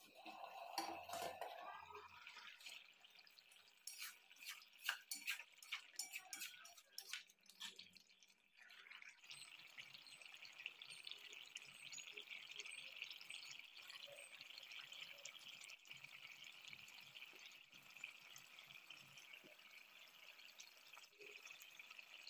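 Faint clinks and knocks of the steel plate lid being lifted off a pan. The thick snail curry then simmers with a steady, fine bubbling crackle.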